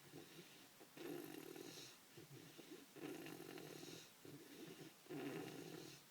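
Snoring in a steady breathing rhythm, a snore about every two seconds, three in all.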